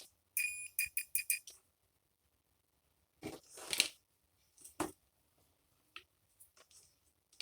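Multimeter continuity beeper sounding in about six short beeps in quick succession, the first a little longer, as contacts are touched and the mouse button is clicked. Then scraping handling noises about three seconds in and again near five seconds, with a few faint clicks.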